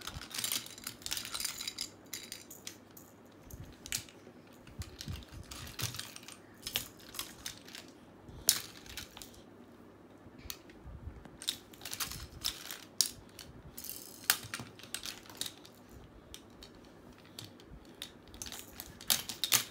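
Small plastic baby rattles and teething toys clicking and clattering as they are picked up, shaken and handled, in irregular clicks with one louder clack about eight seconds in.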